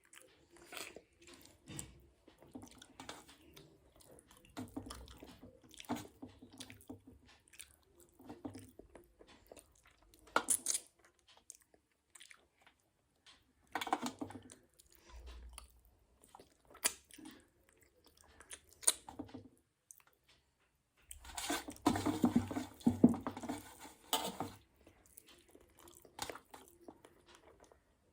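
Close-miked chewing and mouth sounds of someone eating a meal of rice and fish curry, with scattered sharp clicks and crunches. A denser, louder stretch of eating noise comes about three-quarters of the way through.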